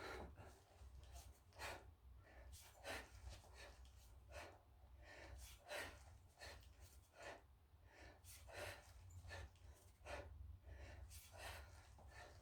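Faint, forceful breathing of a man lifting a kettlebell: short puffs of breath every second or so, in time with the lifts, over a low steady hum.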